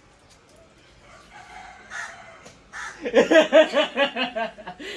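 A person breaking into hard laughter about three seconds in: loud, rapid bursts of 'ha-ha-ha', about six a second, after a few quiet seconds.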